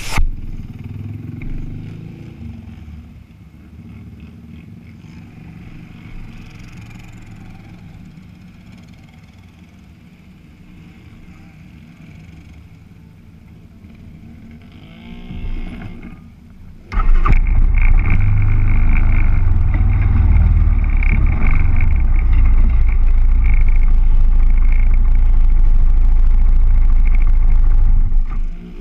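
ATV engines running close by, with a short rev about halfway through the first part. About two-thirds of the way in the sound jumps suddenly to a much louder, steady low engine drone that holds until it drops off near the end.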